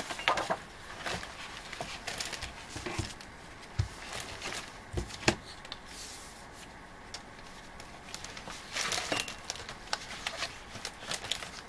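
Sheets of patterned scrapbook paper and sticker sheets being handled and flipped through, paper rustling in uneven spells with light clicks and a few soft knocks.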